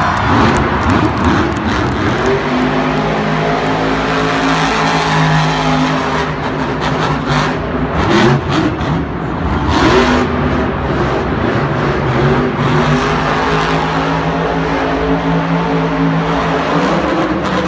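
Monster truck's supercharged V8 engine running hard at high revs, its pitch dipping and climbing again as the throttle is worked, around eight and ten seconds in.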